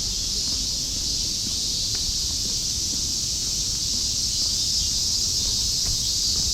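Chorus of cicadas buzzing steadily: a loud, even, high-pitched hiss that does not let up.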